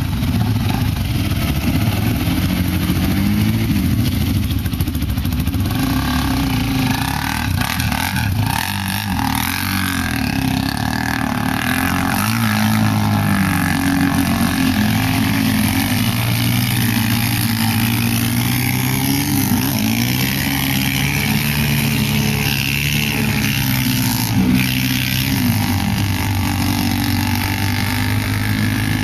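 Quad bike engine revving up and down again and again as it is ridden through deep muddy water.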